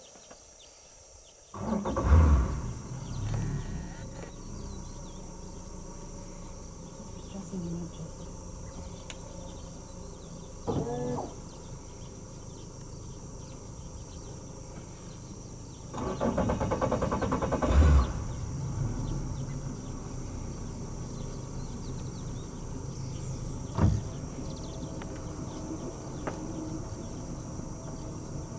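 Steady insect chorus, broken by a few louder, low rough sounds. The longest runs about two seconds, and there is a short call that rises and falls in the middle and a single knock near the end.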